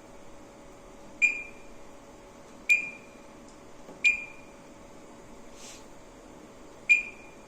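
Key-press beeps from an analogue addressable fire alarm control panel's keypad as its menu is stepped through: four short single beeps, spaced unevenly one and a half to three seconds apart.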